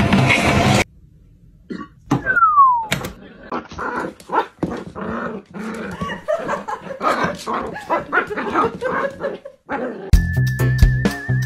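A dog yipping and whimpering in many short, broken calls, with a single falling whistle-like glide about two seconds in.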